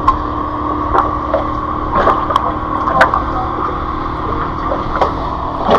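Sharp clicks and taps, roughly one a second, as a hooked freshwater drum is handled and unhooked in a mesh landing net. A steady low hum runs underneath.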